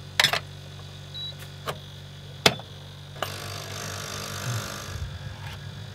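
Items being handled in a metal canopy kitchen drawer: a few sharp clicks and knocks, the loudest about two and a half seconds in, then a rustle lasting a second or two, over a steady low hum.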